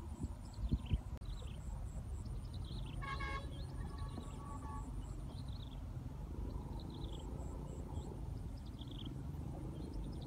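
Outdoor rural ambience: a steady low rumble of wind on the microphone, with repeated short falling bird chirps and a faint pulsing insect trill. A brief horn-like toot sounds about three seconds in.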